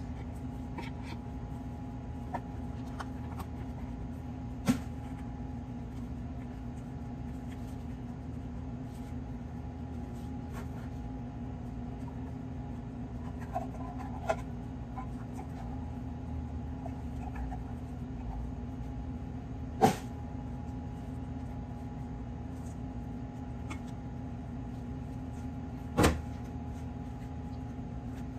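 Steady low hum with a few sharp knocks of a spatula and a mascarpone tub against a stainless steel mixing bowl. The loudest knocks come about two-thirds of the way through and near the end.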